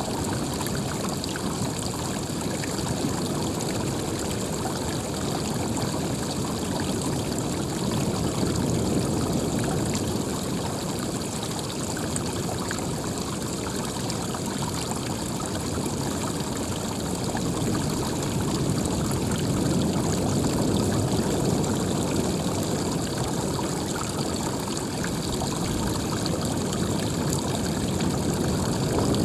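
Steady rush of running water, swelling a little now and then.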